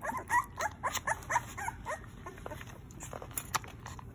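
Young bottle-fed puppy squeaking and whimpering in rapid, short, high cries that bend up and down in pitch, thick in the first two seconds and thinning out after. A couple of sharp clicks come near the end.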